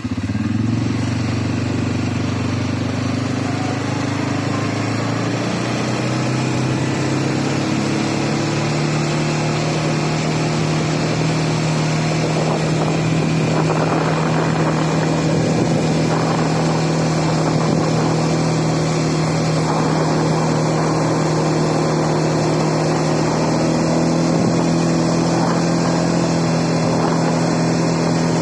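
CFMoto CForce 520L ATV's single-cylinder engine pulling away, its pitch rising over the first few seconds and then holding steady as it cruises.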